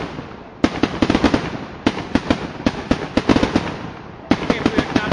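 Fireworks going off in quick bursts of rapid crackling reports, many sharp cracks a second. A new burst starts under a second in, another about two seconds in, and another past four seconds.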